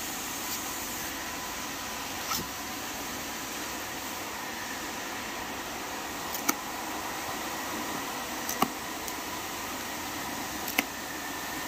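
White plastic packing straps on a cardboard box snapping as they are cut: four sharp snaps, the last three about two seconds apart, over a steady fan-like hiss.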